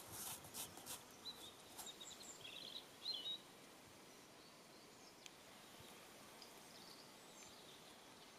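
Faint outdoor quiet with a few short bird chirps about three seconds in and some light clicks in the first second or two, then only a low steady hiss.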